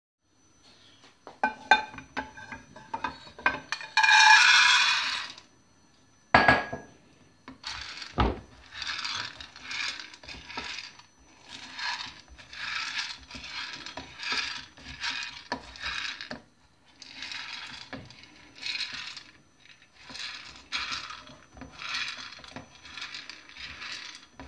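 Terebinth berries rattling and scraping in a non-stick frying pan as a silicone spatula stirs them in quick repeated strokes, about two a second, while they roast. In the first few seconds there are clinks, a loud rattling rush and a couple of sharp knocks.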